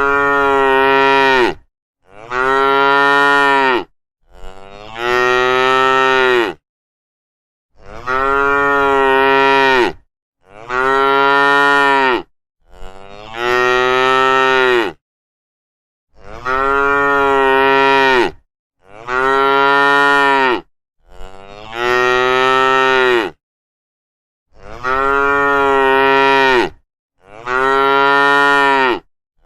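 Cow mooing over and over: about eleven long, loud moos of roughly two seconds each at a similar pitch, with short silent gaps between them.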